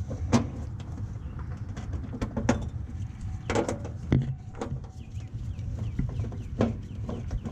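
Small birds chirping in a steady series of short falling notes, with several sharp knocks and clatters of handling over a low steady rumble.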